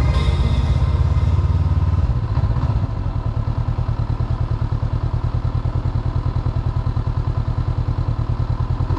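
Honda CB500X motorcycle's parallel-twin engine running, easing off about two seconds in and then settling to a slow, even pulsing idle.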